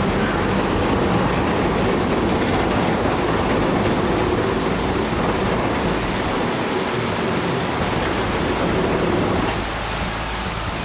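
Loud steady rumbling, clattering noise that drops off about nine and a half seconds in.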